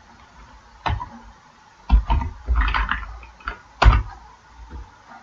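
Computer keyboard keys being pressed: a handful of separate clacks with pauses between them, a quick run in the middle and the loudest one about four seconds in.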